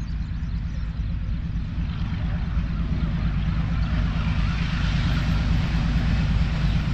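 Approaching diesel-electric locomotive, a steady low engine drone that grows slowly louder as the train picks up speed.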